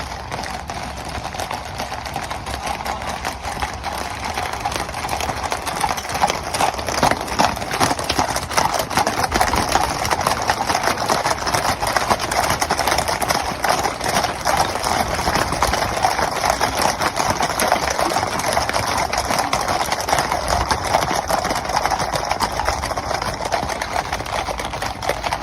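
A large mass of horses galloping together, a dense continuous drumming of hoofbeats like a cavalry charge. It grows louder over the first several seconds, then holds steady until it cuts off at the end.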